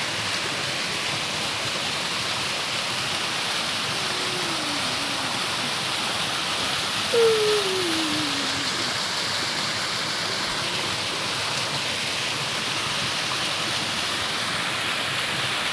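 Waterfall rushing steadily. About seven seconds in, a brief falling voice-like call rises above it, the loudest moment, and a fainter one comes a few seconds earlier.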